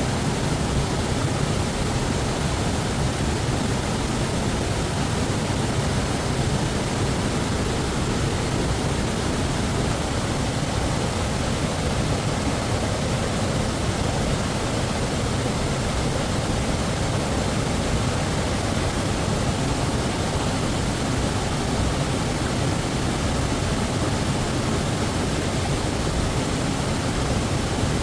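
Waterfall rushing with a steady, unbroken noise.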